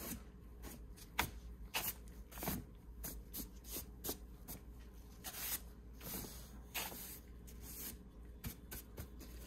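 A dry, wide paintbrush sweeping over the paper pages of a large old dictionary: a run of quick, irregular brush strokes, some short and some longer swishes.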